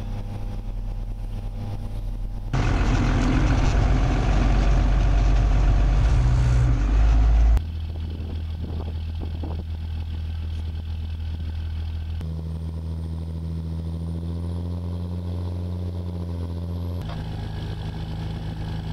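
Engine of a tracked over-snow vehicle running steadily, heard over several cut-together shots. From about two and a half seconds in to about seven and a half it is much louder and noisier, then it settles back to a steady hum.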